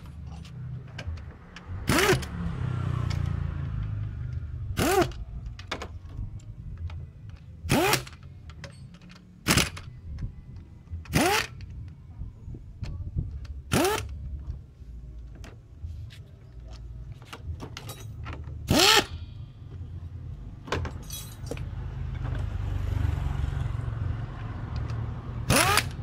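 Pneumatic impact wrench fired in about nine short bursts a few seconds apart, running down the bolts of a Yamaha Mio scooter's CVT cover, over a steady low rumble.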